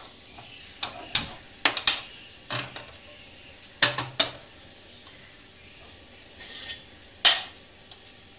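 Metal kitchen clatter: a non-stick frying pan and a metal utensil knocking and clinking against a gas stove's pan supports, a string of separate sharp clinks with the loudest about seven seconds in.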